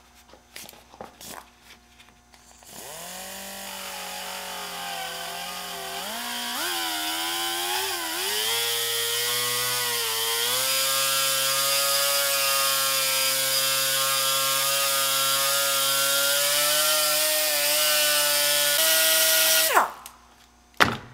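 Small die grinder whining as it grinds plastic off a MAP sensor's connector housing. It starts with a few short blips, then runs continuously, its pitch wavering as the bit bites into the plastic, and stops suddenly near the end.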